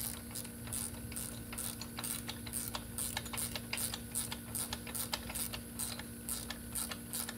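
Ratchet wrench clicking in a steady run of short strokes, about three a second, as it tightens the lock-nut bolts of a rear disc brake caliper bracket on a Chevy 10-bolt axle.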